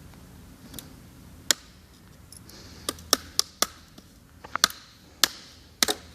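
Sharp plastic clicks and snaps, about ten of them at uneven intervals, bunched closer together in the second half: the retaining clips of a Sony Vaio laptop's screen bezel popping loose as the bezel is pried off.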